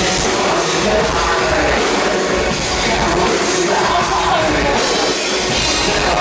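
Loud live industrial rock music from a band on stage, with a voice singing over it.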